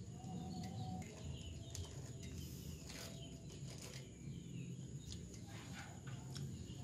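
Quiet outdoor ambience with faint, scattered bird chirps and a few soft clicks over a low steady hum.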